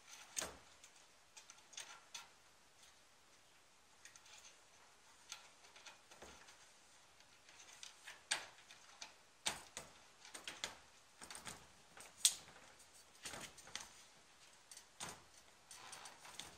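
Aftermarket grille being worked into place on a car's front end, giving light, irregular clicks and taps as it knocks against the bodywork and its mounting brackets, with a few sharper clicks in the second half.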